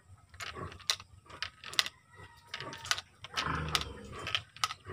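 Glass marbles and plastic parts clicking and tapping as marbles are loaded by hand into the spring-less magazine of a PVC-pipe marble toy gun: a series of irregular hard clicks.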